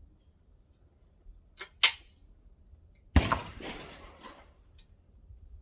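A .410 Baikal MP18M single-barrel shotgun. A sharp metallic click comes a little before two seconds in, then a single shot about three seconds in, its echo dying away over about a second.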